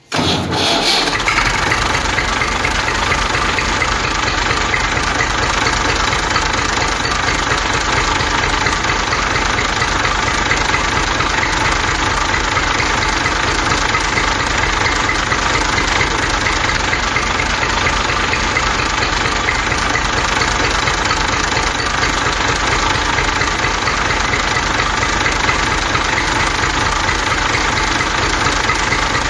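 An engine running steadily with a fast, even pulse, starting abruptly at the beginning.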